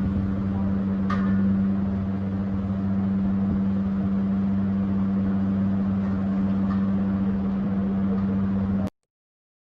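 A steady machine hum, holding one pitch, over a rushing noise. It cuts off abruptly near the end.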